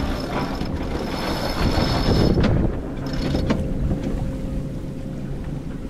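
Wind buffeting the microphone and water rushing along the hull of a sailboat under way, a steady noisy rumble that swells for about a second midway, with a faint steady hum underneath.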